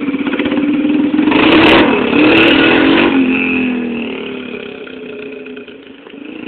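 Yamaha TT-R125 dirt bike's single-cylinder four-stroke engine, its spark arrestor removed, revving as the bike pulls away without a working clutch. It is loudest in the first few seconds, drops in pitch about three seconds in, and then fades as the bike rides off.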